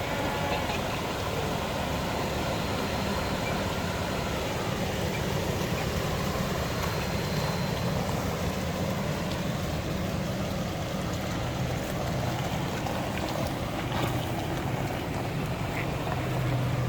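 FJ80 Land Cruiser with a swapped-in 6.0 LS V8 driving steadily, a continuous low engine rumble under road and wind noise, a little heavier in the second half.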